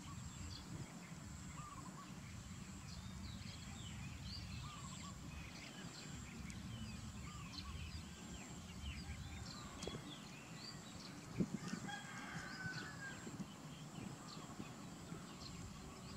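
Faint outdoor ambience: many birds chirping, with one longer call about twelve seconds in, over a steady low rumble. A single sharp knock comes about eleven seconds in.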